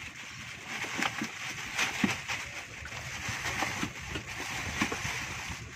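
Mesh fish keep net and plastic bag being handled: rustling with irregular sharp crackles and knocks throughout.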